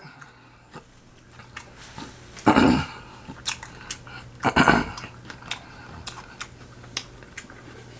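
Close-miked chewing and mouth sounds: small wet clicks and smacks, with two louder, longer mouth sounds about two and a half and four and a half seconds in.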